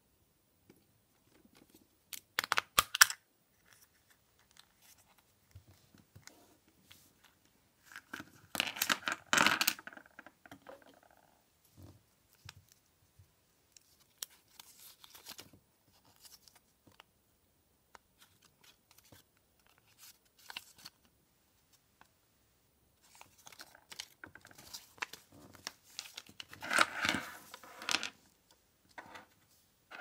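Plastic Kinder Surprise toy capsule snapped open by hand with a few sharp clicks, then paper crinkling and rustling as the folded instruction leaflet is taken out and unfolded, loudest in two spells, about a third of the way in and near the end.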